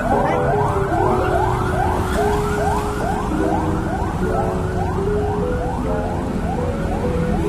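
Background music with a dull, muffled tone, a rising sweep repeating about twice a second over a slowly changing low melody.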